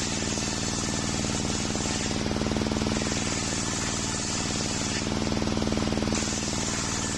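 Large circular sawmill blade ripping through waru wood, over its motor running steadily with a fast, even pulse. The high cutting noise eases briefly about two seconds in and again about five seconds in.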